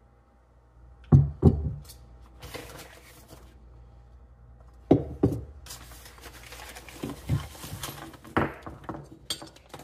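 A small-engine carburetor and muffler set down on a workbench, each landing with a pair of knocks, about a second in and about five seconds in. A plastic bag crinkles between them as the parts are taken out.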